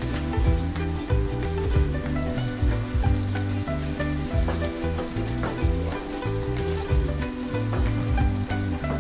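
Thick tomato spaghetti sauce bubbling and sizzling in a frying pan as it boils, with many small pops. Near the end a wooden spoon stirs through it.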